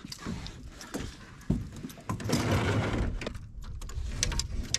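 Knocks and clatter of a rubber-mesh landing net and tackle being handled on a metal boat deck while a hooked speckled trout is unhooked, with one sharp knock about a second and a half in.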